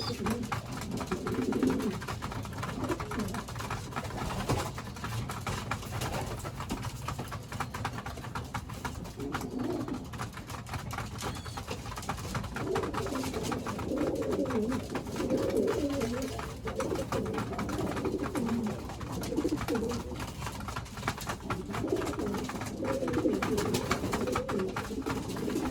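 Domestic pigeons in a loft cooing, low warbling coos coming in bouts with short gaps between them.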